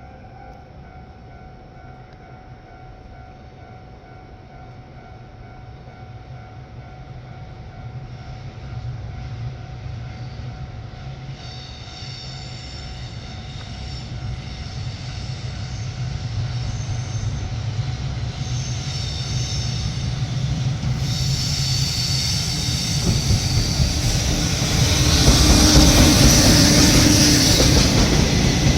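JR Freight EF210 electric locomotive hauling fourteen tank wagons, approaching and growing steadily louder. A high-pitched whine comes and goes from about twelve seconds in and holds steady for the last third, as the train draws level.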